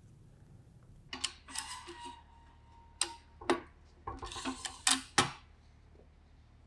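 Metallic clicks and clacks of a cast-iron hand press setting rivets through leather, with rivet parts clinking onto its anvil. Scattered clicks start about a second in, and the sharpest two come near five seconds.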